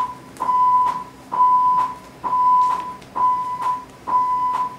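Electronic beeps: one steady, fairly high tone about half a second long, repeating roughly once a second, five or six times, each with a faint click. They serve as a count-in ahead of the song playback.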